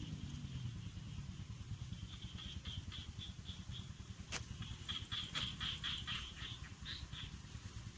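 A run of short, high chirps repeating a few times a second, from a small animal in a rice paddy, over a low rumble. There is a single sharp click midway.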